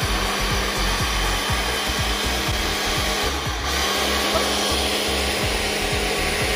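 Personal blender motor running steadily as it blends, with background music keeping a steady beat underneath.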